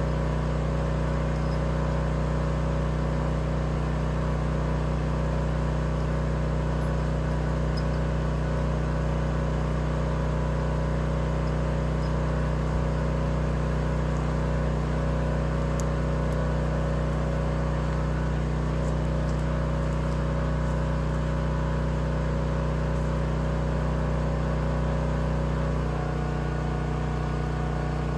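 Small engine idling steadily, with a slight change in its note near the end.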